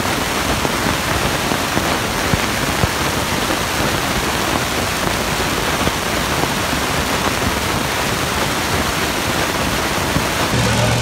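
Loud, steady, hiss-like wash of indoor arena noise with no clear pattern. Near the end, a heavy engine starts running steadily underneath it.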